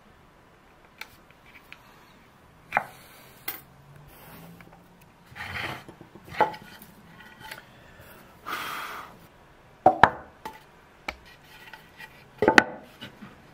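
Scattered knocks and taps of a wooden birch chest, its lid and small tools being handled on a wooden workbench, with two short swishing noises in the middle. The loudest knocks come near the end, as the lid is set down onto the box.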